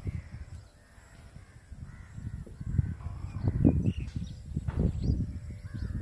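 Birds calling in short, repeated calls over a gusty low rumble of wind on the microphone. The rumble dies down about a second in and builds again after about three seconds.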